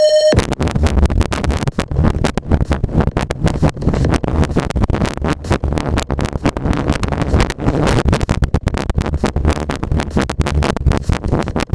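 Harsh, choppy crackling noise from a Sanyo M9994 boombox's playback, heard through a microphone with a failing battery. A brief steady tone cuts off just after the start.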